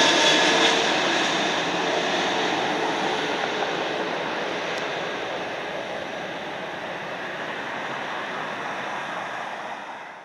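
Jet engines of a large twin-engine wide-body airliner on landing: a steady noise with a faint whine, slowly growing quieter as the jet passes and touches down, then fading out just before the end.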